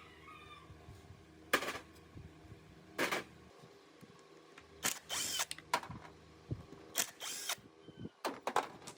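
Workshop tool sounds: about five short, noisy bursts, each under a second long, at irregular intervals over a faint steady background.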